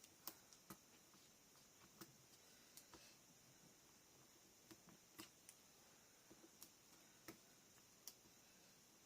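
Near silence broken by scattered faint clicks and taps from handling double-sided tape and small chipboard pieces.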